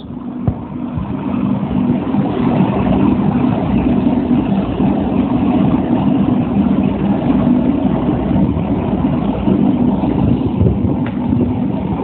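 Steady, even machine drone with a low hum in it, engine-like.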